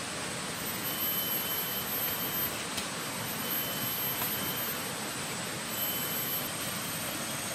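Tropical rainforest ambience: a constant high, thin insect drone over a steady wash of noise, with a thin whistle-like tone that sounds briefly about three times.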